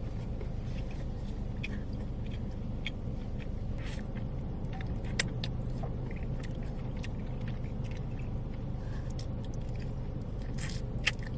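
Person chewing pizza, with scattered short mouth clicks and smacks, over a steady low hum.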